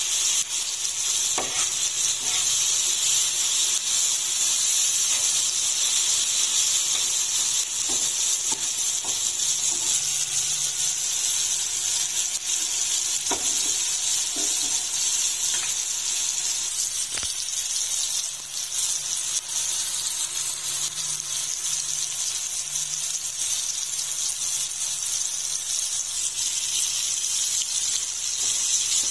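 Eggplant, onion and tomato frying on a hot iron tawa, a steady sizzle, with a few sharp clicks of a metal utensil against the griddle as the vegetables are chopped and turned.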